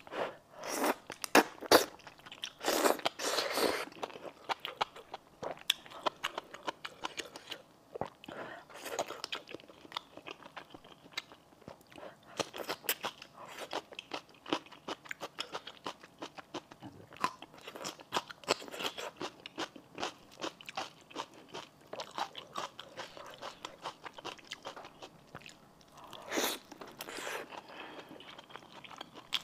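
Close-miked eating of spicy noodle stew: wet chewing and crunching with many small clicks, broken by noodle slurps at the start and again near the end.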